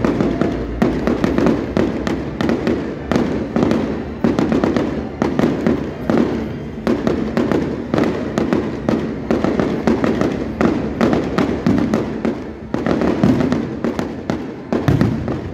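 Fireworks display: a continuous rapid barrage of bangs and crackling, several reports a second with no pause. Near the end, aerial shells burst overhead.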